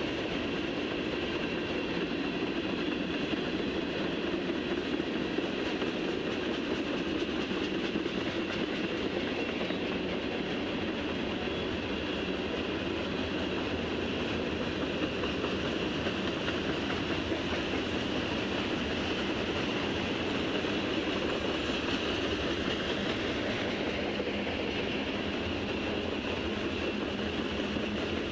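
Freight train cars rolling past, a steady, unbroken noise of wheels on the rails.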